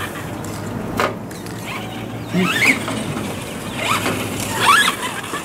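Radio-controlled monster trucks driving on grass, their motors giving short whines that rise in pitch as they speed up, with a sharp knock about a second in.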